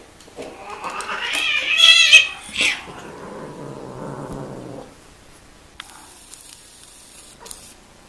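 Domestic cats mating: a loud, wavering, rising caterwaul that peaks about two seconds in, then a short second cry and a low growl lasting about two seconds. This is the typical cry as the male dismounts and the female rolls away.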